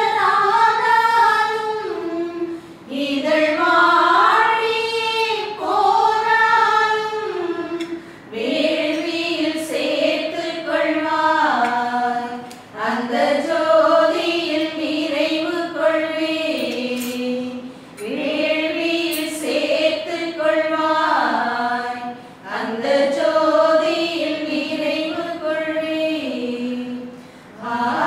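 Tamil Catholic offertory hymn sung by a choir, a slow melody in long phrases with a short break about every five seconds.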